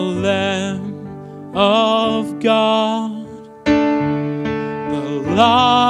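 Slow worship song: a singer holds long notes with vibrato over electric piano accompaniment, with a fresh keyboard chord struck about two thirds of the way through.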